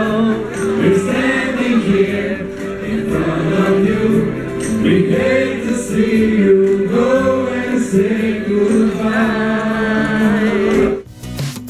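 A man singing into a microphone over a group of voices singing together in held chorus notes. The singing cuts off abruptly near the end.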